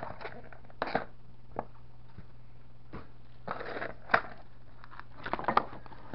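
Cardboard boxes and packaging handled by hand: scattered knocks, scrapes and short rustles as a white product box is lifted out of a cardboard shipping box and the packing inside is rummaged, over a steady low hum.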